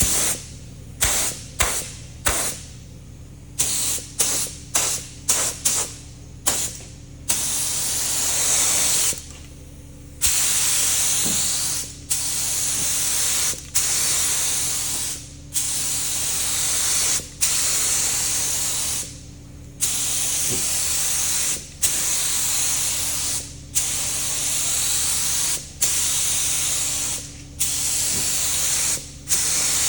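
Air-fed paint spray gun hissing in repeated trigger pulls as it lays paint on a tractor fuel tank. It starts with a run of quick short bursts, then settles into longer passes of about two seconds each, separated by brief pauses.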